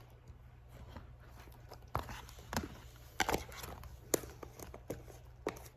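Small plastic slime containers and their lids being handled, giving a handful of short, sharp clicks and taps, about two seconds in, at two and a half, around three and a quarter, about four, and near the end.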